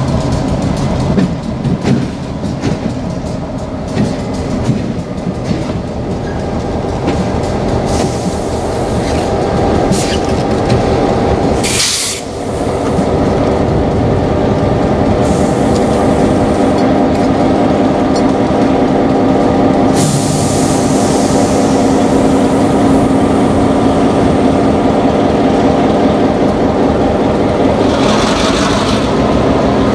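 Diesel locomotive running as it creeps closer at low speed, its engine drone growing louder after about twelve seconds. Several short hisses come and go, one near the end.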